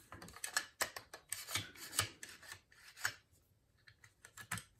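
Metal and polymer shotgun parts scraping, rubbing and clicking as they are worked into place while a Mossberg 590 pump shotgun is put back together. A dense run of scrapes and knocks fades after about three seconds, and a few sharp clicks follow near the end.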